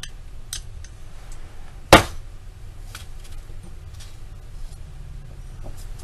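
Handling noise of small hard objects: one sharp click about two seconds in, with several fainter taps around it, as eyeglasses are put down and a wine glass is picked up.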